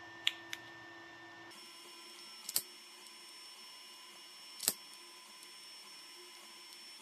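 A 3D printer running steadily as a low hum with a few held tones. Over it come several sharp clicks: two small ones near the start and two louder ones about two and a half and nearly five seconds in.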